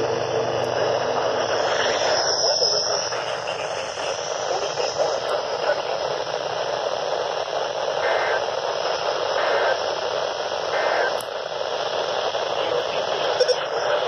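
Steady static hiss from a handheld NOAA weather radio receiver's speaker, with no clear broadcast voice coming through.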